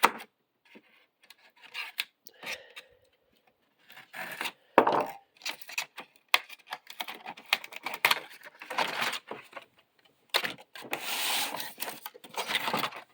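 Cardboard box and packaging being opened and handled by hand: scattered knocks and clicks, rustling and scraping, with a longer scraping rasp about ten to twelve seconds in.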